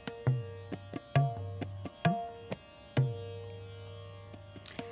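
Background Indian music: tabla strokes about twice a second over a steady drone, the last stroke about three seconds in left ringing.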